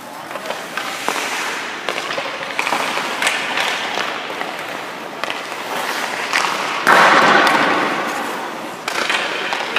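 Ice hockey goalie skate blades scraping and cutting the ice, with sharp knocks, echoing around an indoor rink. About seven seconds in a louder burst of noise dies away over about a second.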